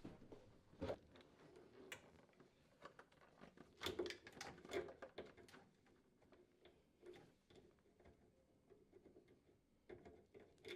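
Faint scattered clicks and light knocks, with a small cluster about four to five seconds in: handling noise as a refrigerator's freezer door is lifted off its lower hinge.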